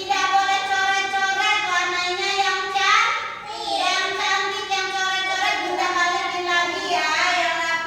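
A child singing a melody in long held notes, phrase after phrase, with a short breath break about three and a half seconds in.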